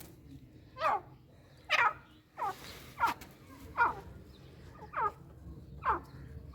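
Teetar (francolin) giving a series of short, sharp, falling calls, about one a second, seven in all. A brief hiss comes between the second and third call.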